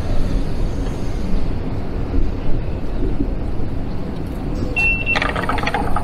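Steady low rumble of a tube station ticket hall; near the end a short high beep, like a ticket barrier's card reader, followed by about a second of rapid clattering.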